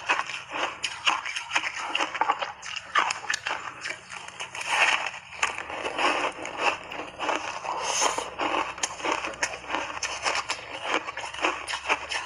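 Block ice coated in milk powder being bitten and chewed, crunching and cracking in many irregular sharp snaps, several a second.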